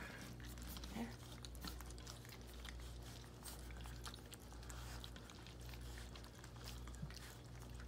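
Puppies lapping and chewing wet gruel at their first weaning meal: faint, irregular wet smacks and clicks of small mouths eating.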